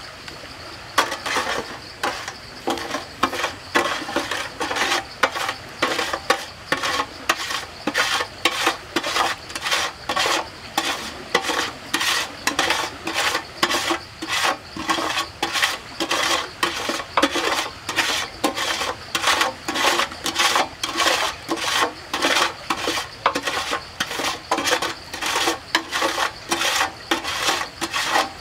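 A utensil stirring a thin chili-flake dressing in a stainless steel pan, scraping and knocking against the metal about twice a second. The strokes start about a second in.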